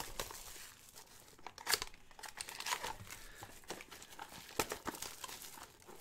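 Hands opening a cardboard trading-card box and handling the foil-wrapped pack inside: irregular crinkling, rustling and tearing of paper and foil, in short uneven bursts.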